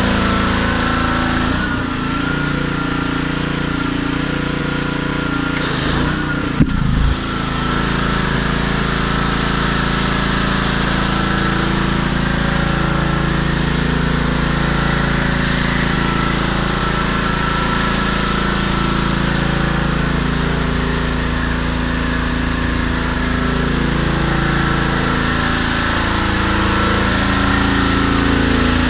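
Honda-powered Troy-Bilt gas pressure washer's single-cylinder engine running steadily, with the hiss of water and foam spraying from the foam cannon. A single sharp click about six and a half seconds in.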